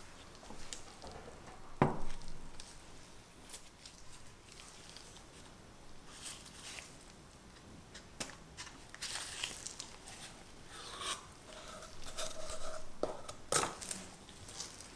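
A paper cup is peeled and torn away from a hardened chocolate cup, with paper crinkling and tearing in bursts. There are a few sharp knocks, the loudest about two seconds in and near the end.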